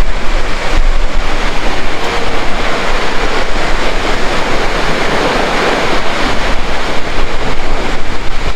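Steady rushing roar of a tall (about 90 m) waterfall, with wind buffeting the microphone.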